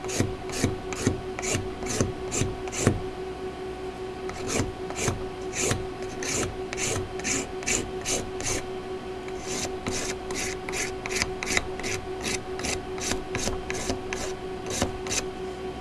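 A piece of hacksaw blade scraped in quick repeated strokes across a red oak board, a rasping scratch about two to three times a second, with two short pauses. The strokes score lines in the wood so the sharpening compound has somewhere to catch. A steady low hum runs underneath.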